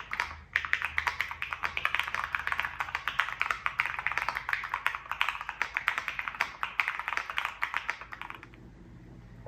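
Fast typing on a Monsgeek M1 mechanical keyboard with AKKO Jelly Black linear switches, PBT cherry-profile keycaps and an FR4 plate with all foam removed: a rapid, continuous run of keystroke clicks that stops about a second before the end.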